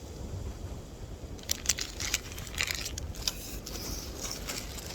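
Plastic bead packaging crinkling as it is handled and opened, with a run of sharp, irregular crackles starting about a second and a half in.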